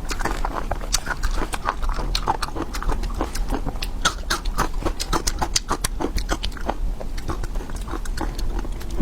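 Close-up chewing and crunching by mouth: a dense, irregular run of sharp crackling clicks.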